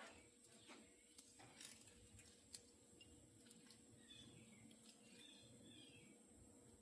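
Near silence: room tone with a few faint light clicks in the first couple of seconds.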